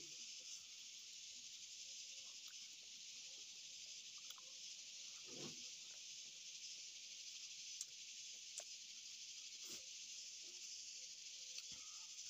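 Steady, high, even hiss of an insect chorus in the woods, with a few faint, short clicks and knocks of food being handled and eaten by hand.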